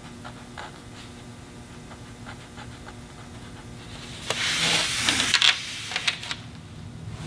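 Quiet painting handling sounds over a faint, steady low room hum: a few light taps, then about four seconds in a brief hissy rustle and rub lasting about a second as the arm reaches across to the palette.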